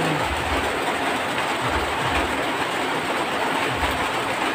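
Heavy rain pouring down on corrugated metal sheeting, a dense steady hiss with irregular low thumps underneath.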